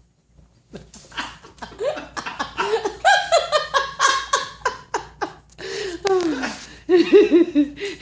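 Hearty laughter in rapid runs of short, falling ha-ha syllables, starting about a second in and loudest in the middle and again near the end.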